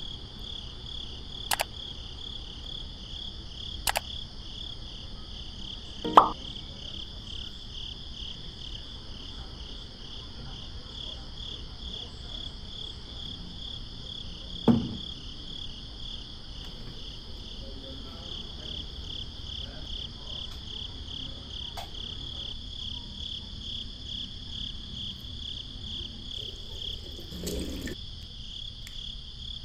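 Crickets chirping steadily in a high, evenly pulsing trill. A few sharp clicks and knocks sound over it, the loudest about six seconds in.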